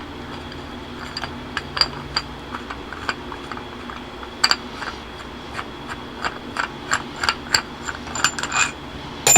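Irregular light metallic clicks and clinks of small steering-column parts being handled and fitted, over a steady low hum.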